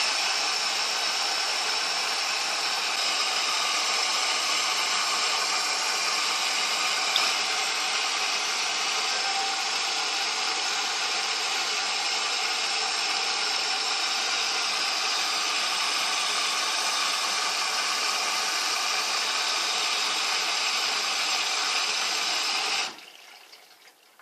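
Fagor washing machine running, a steady machine whine and rush that stops suddenly near the end.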